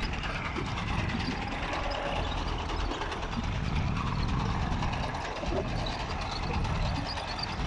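Tractor-drawn potato digger at work, its chain-web elevator rattling and clattering steadily as it lifts potatoes and soil, with the tractor engine running underneath.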